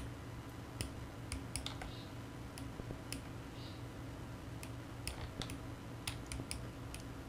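Irregular, faint clicks of a computer mouse and keyboard, over a low steady hum.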